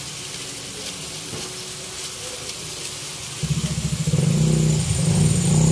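String beans in soy sauce sizzle softly in a wok. About three and a half seconds in, a much louder engine starts up with a low, pulsing hum, and it grows louder again a moment later.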